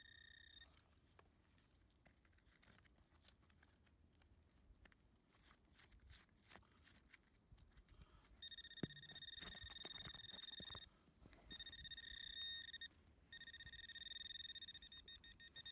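A metal detector gives a steady, high electronic tone in three long stretches from about eight seconds in, with short breaks between them, signalling metal close by in the soil. Before the tone, faint scraping and clicking of a hand digger working in the dirt.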